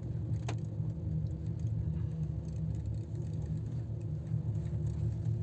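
Steady low rumble and hum inside a moving gondola cabin as it travels up the cable, with one faint tick about half a second in.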